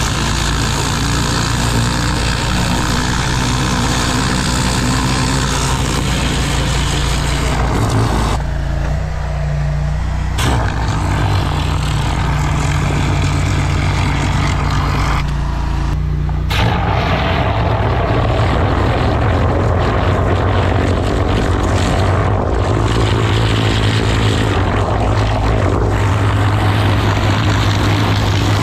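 High-pressure drain jetter running steadily, its water jet hissing as it blasts into a stormwater pipe to cut out blocking tree roots. The spray's hiss drops out twice, for about two seconds around 8 seconds in and more briefly around 15 seconds in, while the engine hum carries on.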